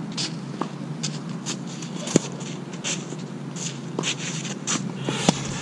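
Tennis shoes scuffing and shuffling on the court surface, with two sharp tennis-ball impacts about three seconds apart, the second near the end.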